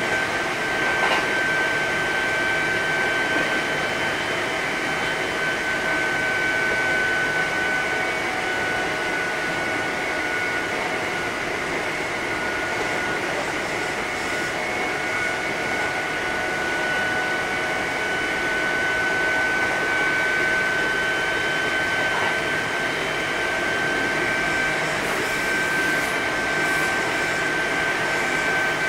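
Kintetsu 8000 series electric train running at speed, heard from inside the car: steady running noise with a high whine that wavers slightly in pitch.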